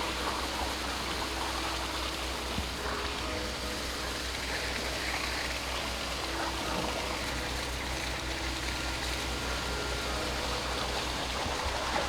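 An engine running steadily, a low evenly pulsing rumble under a constant rushing noise.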